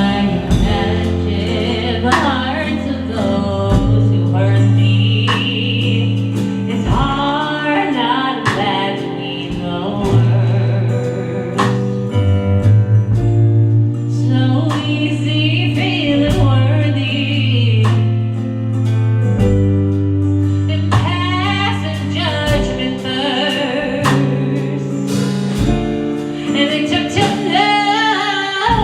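Gospel song: voices singing wordless or unclear lines over instrumental accompaniment with held bass notes.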